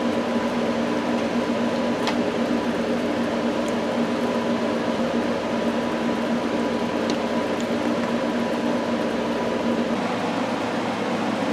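Steady electric hum of a running appliance, with a few faint clicks. Its tone drops away about nine to ten seconds in, leaving a softer hiss.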